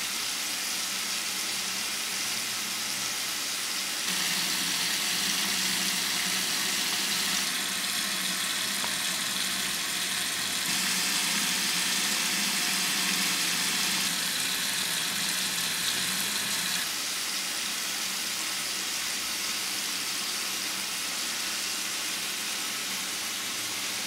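Tap water running in a steady stream into a bathroom sink and down the drain: a continuous rushing splash that shifts slightly in level every few seconds.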